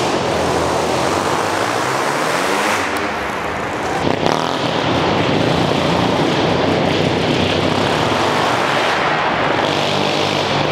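Go-kart powered by a 1975 Hercules W2000 single-rotor Wankel motorcycle engine, running hard through a custom exhaust with an aluminium silencer, its revs rising and falling as it drives. The sound echoes around a large empty warehouse.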